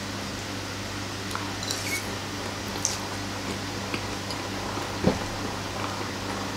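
Mouth sounds of a man eating a forkful of instant noodles, with a few short clicks of fork and spoon, the loudest about five seconds in, over a steady low hum in the room.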